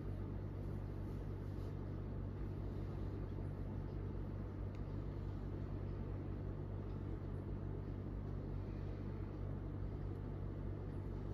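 Steady low machine hum with a faint hiss underneath, unchanging.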